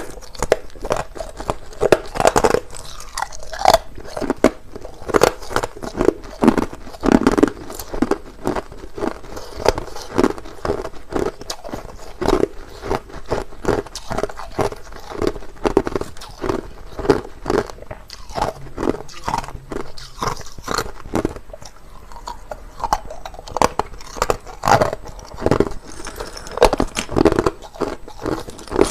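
Someone chewing and biting hard crushed ice, a rapid, irregular run of sharp crunches several times a second.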